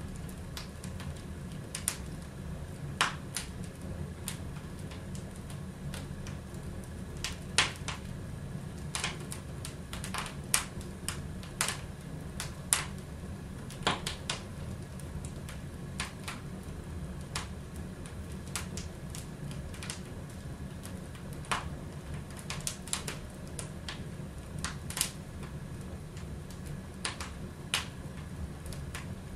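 Wood fire crackling in a fireplace: irregular sharp pops and snaps, a few louder than the rest, over a steady low rumble.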